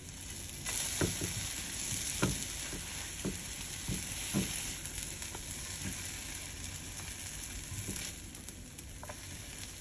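Eggplant omelette sizzling in a hot nonstick frying pan, with a silicone spatula scraping and knocking against the pan several times as pieces are lifted out. The sizzle fades near the end.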